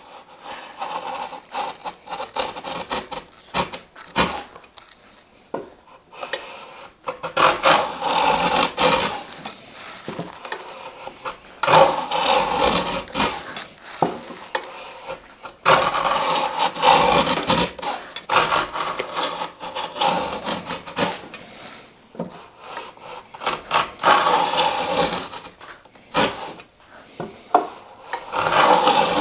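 Stanley No. 78 rabbet plane cutting a rabbet across the grain of a board, its spur cutter scoring the fibres ahead of the iron: a series of rasping planing strokes, each about two seconds long and coming every four seconds or so. It is quieter at the start, with a few light knocks before the strokes begin.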